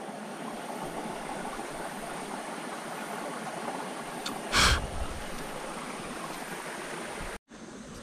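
Steady rushing of a mountain stream, with one short thump about four and a half seconds in; the sound cuts out for a moment near the end.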